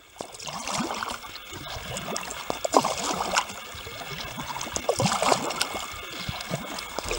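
Water splashing, gurgling and dripping around a sea kayak and its paddle as it glides through calm water, fading in over the first second.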